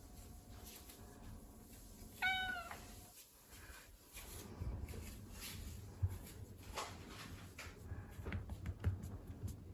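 A Ragdoll cat gives one short meow about two seconds in. From about halfway on, a low, uneven rumble of purring runs, with faint clicks over it.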